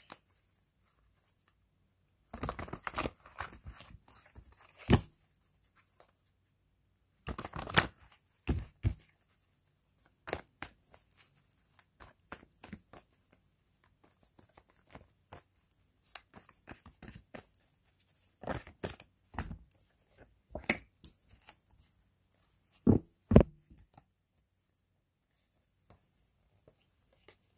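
Tarot deck being shuffled and handled: spells of card rustling with sharp slaps, a second or two each, separated by quiet pauses. The loudest slaps come about 23 seconds in.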